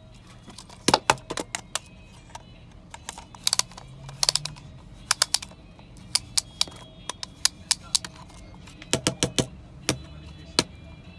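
Irregular sharp plastic clicks and taps from a Spider-Man-head light-up toy being handled and set down on a table, coming in short clusters over a low background hum.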